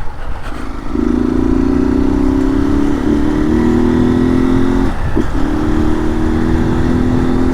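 Honda Start motorcycle's single-cylinder engine, run without a filter, accelerating under load from about a second in. Its pitch climbs steadily, with two brief breaks for gear changes, about two seconds apart.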